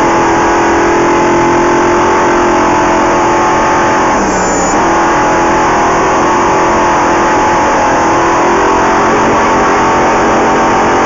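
Off-road race vehicle's engine running hard at steady high revs, with a short dip in revs about four seconds in, over a constant rushing noise.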